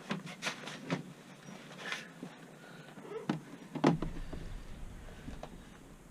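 Scattered clicks and knocks of tools and metal parts being handled at a motorcycle's rear brake, the loudest about four seconds in, with a low rumble underneath in the second half.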